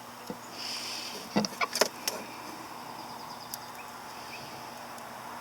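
Soldering gun humming steadily as it heats the joint, with a few sharp clicks from handling about one and a half to two seconds in.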